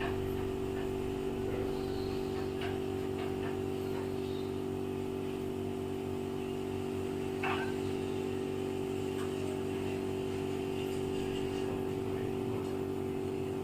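A steady mechanical hum at a few fixed pitches, with a few faint clicks over it.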